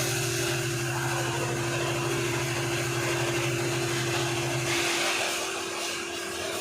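A motor-driven machine running steadily, a hum with a hiss over it. Its deeper hum drops out about two-thirds of the way through while a higher steady tone carries on.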